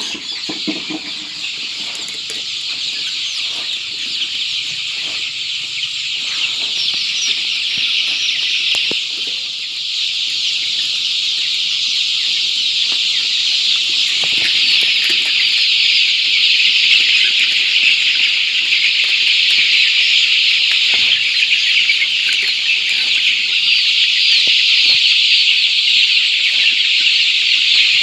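A large flock of month-old Kadaknath chicks peeping all at once in a dense, unbroken chorus, growing louder about ten seconds in.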